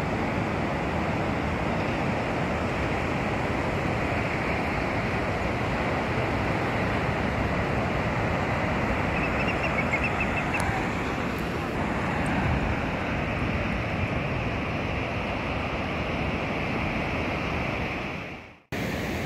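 Steady rush of ocean surf breaking, mixed with wind on the microphone; the sound fades out sharply and comes back just before the end.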